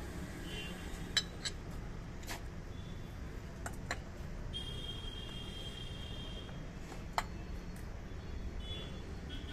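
A few sharp metal clicks and clinks as the new oil filter is tightened by hand and with a wrench, the loudest a little after a second in and about seven seconds in, over a steady low workshop hum. A thin high tone sounds for about a second and a half near the middle.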